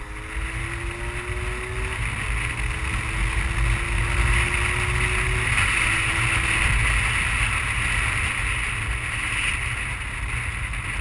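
50cc two-stroke manual-gearbox supermoto accelerating through the gears: its engine note climbs, drops at a gear change about two seconds in, climbs again and shifts once more about halfway through, under heavy wind rumble on the microphone.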